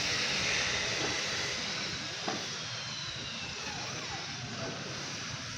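Steady noise of passing road traffic, with a faint whine falling in pitch over the first few seconds and one sharp click a little over two seconds in.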